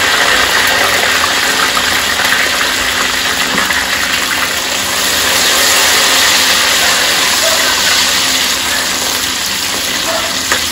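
Hot sesame oil sizzling steadily in an unglazed clay pot as a tempering of vadagam, green chillies and curry leaves fries, stirred with a metal ladle.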